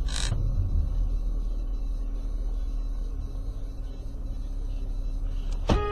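Steady low rumble of a car's engine and tyres on a snowy road, heard from inside the cabin. Near the end a car horn starts sounding, one steady blast.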